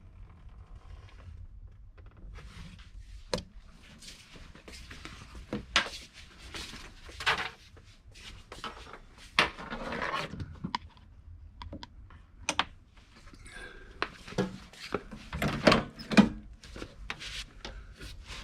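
Irregular knocks, clicks and rustling from close-up handling, scattered through the whole stretch over a low steady rumble.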